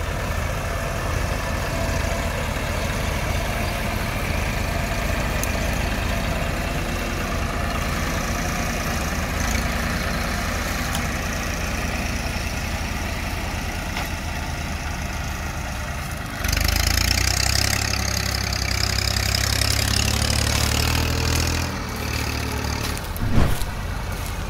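Diesel tractor engines running steadily as a New Holland TS6.140 helps a TAFE 45DI tractor haul a loaded sugarcane trailer. About sixteen seconds in the sound gets louder, with a deeper rumble and a hiss, for about five seconds. There is one sharp knock near the end.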